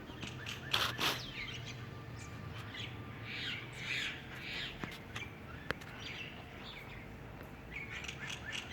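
Several small birds chirping in a tree, short high chirps scattered throughout, with two louder calls about a second in.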